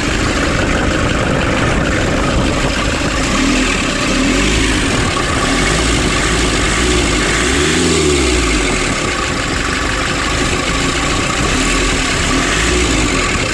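Nissan Urvan van's diesel engine idling steadily, still cold, running again after repairs to its diesel pump and fuel pipes.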